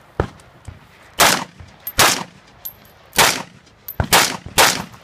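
Semi-automatic rifle fired five times in a practical-shooting stage, each a loud sharp crack with a short echo, spaced about half a second to a second apart. Fainter pops come in between.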